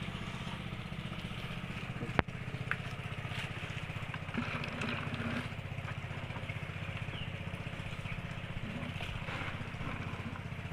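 A small engine running steadily at idle, with one sharp click about two seconds in.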